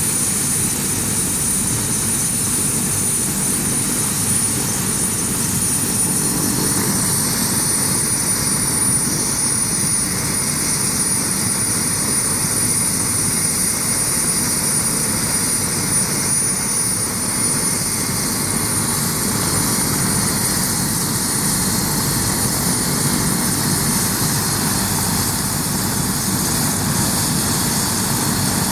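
Bell 407 helicopter's turboshaft engine running on the ground while it is hot-refuelled: a steady high turbine whine over a constant rush of engine and rotor noise.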